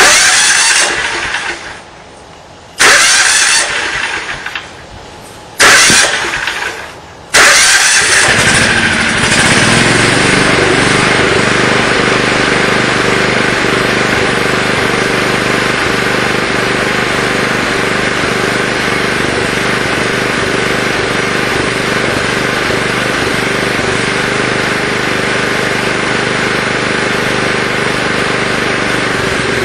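Small 12 hp generator engine, running on gasoline vapor from a GEET vapor carburetor, being started: three short bursts of engine noise that each die away within a couple of seconds, then about seven seconds in it catches and settles into a steady run.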